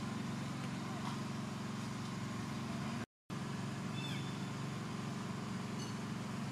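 Steady low drone of a running engine, even in pitch, cutting out completely for a moment about three seconds in.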